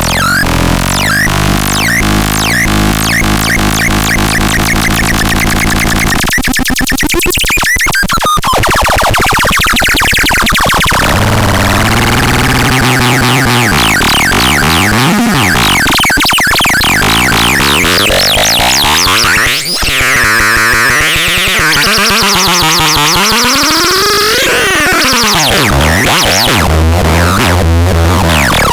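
Electronic synthesizer sounds: a repeating sequenced pattern over a bass line, which about six seconds in gives way to swooping sweeps rising and falling in pitch, with the heavy bass returning near the end.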